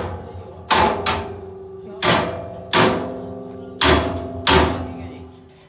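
Hammer striking a steel workpiece, six blows in pairs about a second and a half apart. Each blow leaves a ringing metallic tone that fades away.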